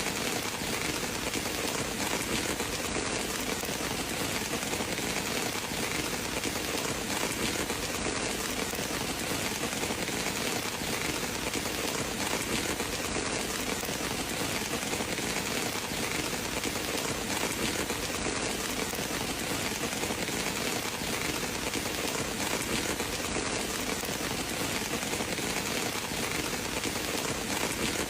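Steady rain falling on surfaces, an even, unbroken hiss.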